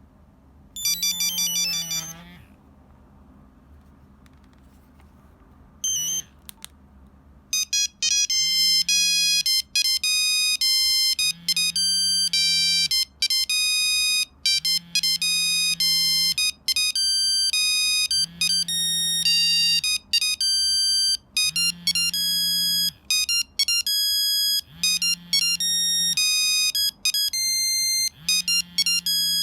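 Nokia 3395 mobile phone playing a monophonic ringtone: a melody of quick beeping notes that starts about seven seconds in and runs on, after a short burst of tones about a second in and a brief blip near six seconds. A low buzz comes and goes every few seconds under the melody.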